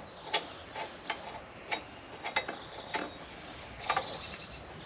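Scattered light clicks and taps of metal parts being handled as a grab rack bracket and its bolts are fitted to a motorcycle's rear frame, about eight in all. Birds chirp faintly between them, with a quick run of chirps near the end.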